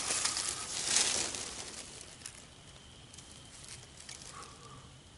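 Dry grass tinder bundle rustling and crinkling as it is handled and folded around a glowing coal. The handling dies down after about two seconds.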